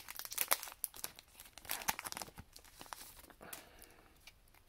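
Pokémon card booster pack's foil wrapper being torn open and crinkled by hand: a quick run of sharp crackles that thins to a fainter rustle after about three seconds.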